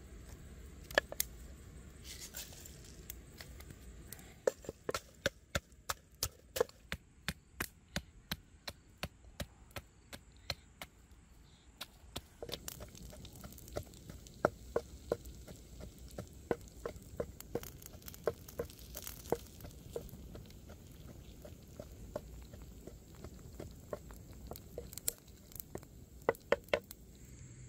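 Repeated chopping: a blade striking wood again and again, about two strokes a second, in runs broken by short pauses.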